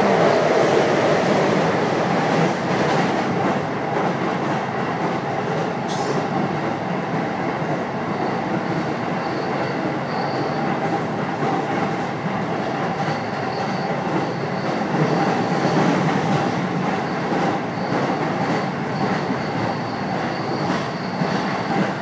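Inside a JR Keiyo Line commuter train car running at speed: the steady rolling noise of wheels on rails. A faint high whine comes and goes in the second half.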